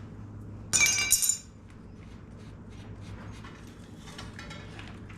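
Metal hand tools clinking together in a short ringing clatter about a second in, followed by faint small clicks of handling.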